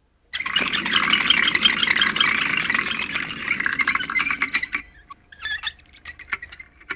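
A spinning numbered wheel of fortune ticking fast against its rim pegs, a dense rattle that thins out after about four and a half seconds into separate clicks further and further apart as the wheel slows to a stop.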